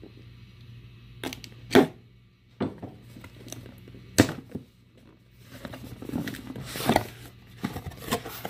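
Corrugated cardboard mailer box being opened by hand: several sharp snaps and cracks as the taped lid is pried loose, then rustling near the end as fingers dig into crinkle-cut paper shred packing.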